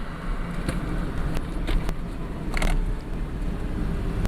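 Engine and road noise of a 2001 Ford Mustang's 3.8 V6 while driving, heard from inside the cabin: a steady low rumble with a few light clicks.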